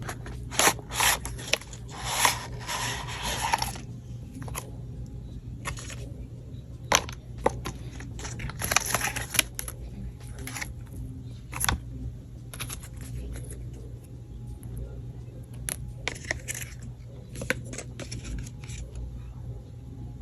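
Hands handling a new iPad and its packaging and accessories: a string of sharp clicks and taps, with two longer stretches of rustling about two and nine seconds in.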